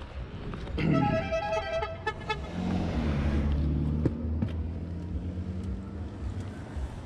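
A vehicle horn honks for about a second and a half, then a vehicle engine runs low and steady and fades.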